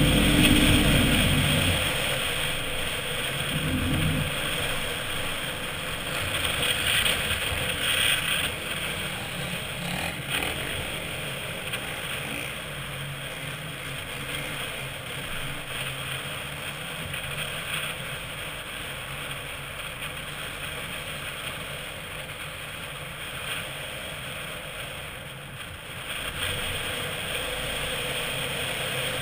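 Lifted 2007 Chevy Avalanche with a Flowmaster exhaust, its V8 engine working hard up a sand dune, loudest in the first second or two, then easing off to a steady, quieter run.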